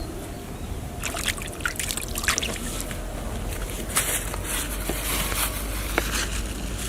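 Water trickling and splashing, with scattered short splashes and knocks over a steady low rumble.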